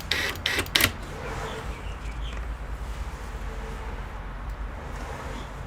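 Three or four sharp clicks and knocks in the first second, from parts being handled, then a steady low hum.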